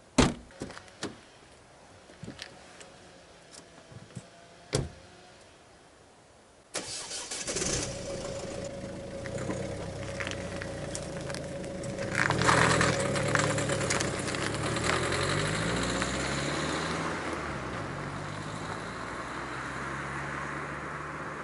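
A Ford Focus's boot lid slams shut, followed by a few lighter clunks. About seven seconds in the car's engine starts, and it runs with its pitch rising and falling as the car pulls away. Near the end a steady rush of tyre and road noise comes from another car approaching.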